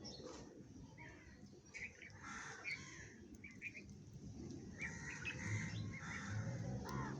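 Several house sparrows chirping in short, scattered chirps. A low hum comes in over the second half.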